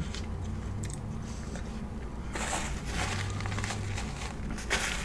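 Close-miked eating sounds: biting and chewing fast food, with a longer crackly stretch about two and a half seconds in and a short burst near the end, over a steady low hum.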